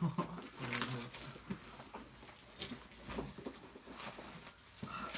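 Cardboard mystery box being opened and its packaging handled: scattered rustles and sharp crackles, with a brief voice in the first second.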